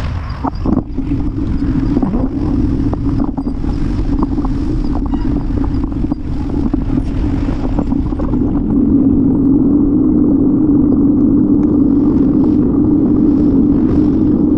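Wind and road rumble picked up by a camera on a moving bicycle: a steady low drone with a constant hum in it. Short knocks from bumps come through over the first eight seconds, then the noise turns smoother and a little louder.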